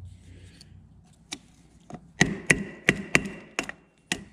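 Hammer blows on a ground-down link of a motorcycle drive chain, knocking the link pin out to break the old chain. A couple of single taps, then a steady run of hard metallic strikes about three a second from about halfway in.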